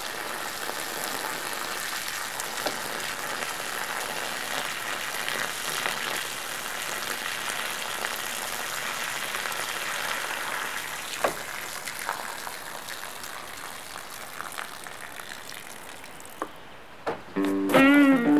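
A thin stream of water drains from a hose end on a homemade gravity flow bench and splashes steadily onto gravel, growing gradually quieter. Electric guitar music comes in near the end.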